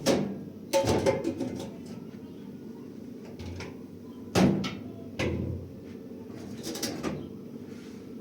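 A handful of sharp knocks and clatters, a few seconds apart, over a steady low hum.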